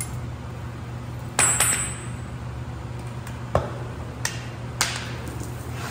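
Cutting torch being lit. A loud sharp metallic click with a ringing edge comes about a second and a half in, then three shorter clicks over the next few seconds as the flame is lit. A steady low hum runs underneath.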